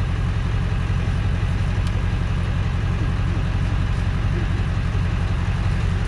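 Tow truck's engine idling, a steady low rumble.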